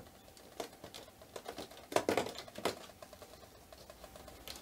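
Cardboard advent calendar door being pulled and torn open by hand, with the item inside rustling: a run of small clicks and rustles, loudest about two seconds in.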